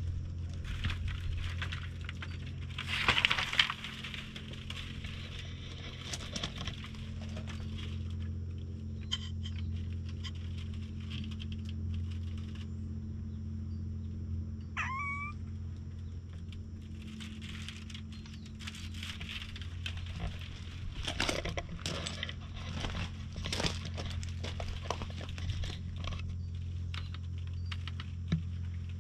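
Scattered rustling and clicks over a steady low hum, with a single short meow from a cat about halfway through, rising in pitch.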